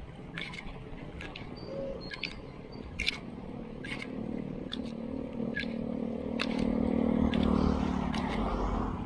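A motor vehicle's engine hum approaching and passing, growing louder from about four seconds in, loudest a couple of seconds before the end, then falling away. Scattered sharp clicks throughout.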